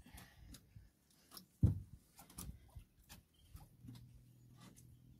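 A fishing handline being hauled in hand over hand with a fish on, the line rubbing and swishing through the hands in short soft strokes, with a single thump about one and a half seconds in. A low steady hum comes in near the end.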